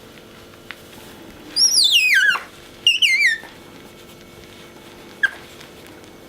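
Asian small-clawed otter squeaking: a long, high, warbling call that slides down in pitch, then a shorter warbling call just after, and a brief chirp near the end. These are its excited squeaks at being shown its favourite orange towel.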